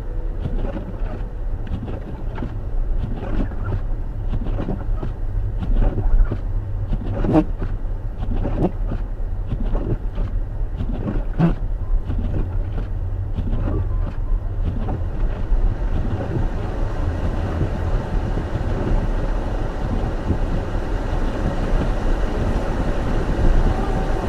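Steady low rumble of a car's tyres and engine heard from inside the cabin while driving on snowy roads. Through the first half there is a string of irregular short knocks that stop about fifteen seconds in.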